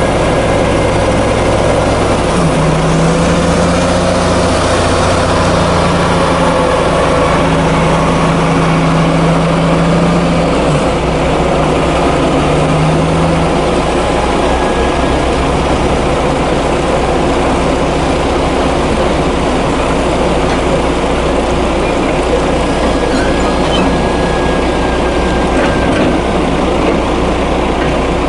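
Diesel engine of a Scania coal-hauling truck pulling a double side-dump trailer slowly through mud. The engine note shifts a few times in the first half, then runs steady.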